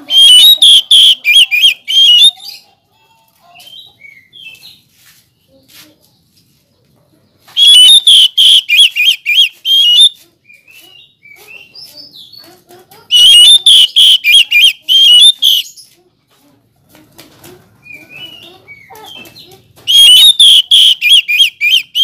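Oriental magpie-robin singing in four loud bouts of rapid repeated notes, about four a second and some two and a half seconds each, with soft scattered chirps in the gaps between bouts.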